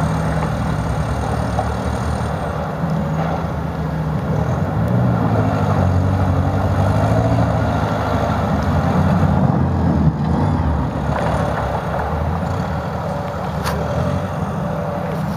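Off-road racing buggy's engine revving up and down as it works through slush and water. The pitch rises and falls unevenly, loudest around the middle.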